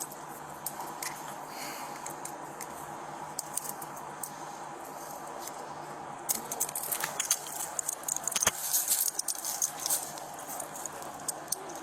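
Metal handcuffs and keys rattling and clicking as a pair of handcuffs is swapped on a detainee's wrists. The clicking and jangling get busy past the middle, with one sharp click among them.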